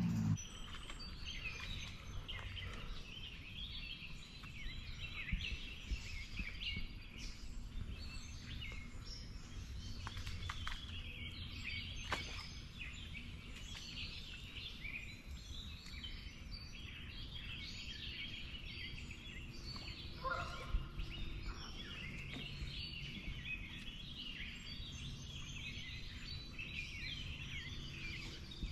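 Birds calling and singing, a steady stream of high chirps and twitters, over a low steady rumble; about 20 seconds in, one short lower-pitched call stands out.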